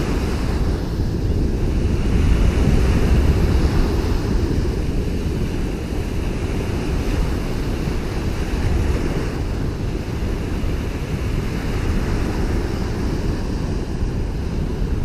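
Small waves breaking and washing up a sandy beach, with wind buffeting the microphone in a steady low rumble.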